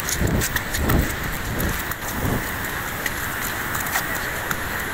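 Steady rushing noise of a swollen, muddy river in flood. In the first two seconds or so, four low thumps about two-thirds of a second apart, footsteps of someone walking over wet ground.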